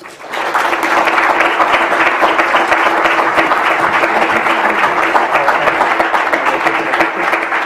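Audience applauding. The clapping starts sharply right after a speech ends and holds at a steady level.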